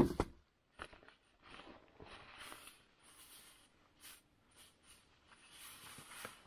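A backpack being handled: rustling of its fabric and straps in several bouts, with a few sharp clicks, after a single loud thump at the very start.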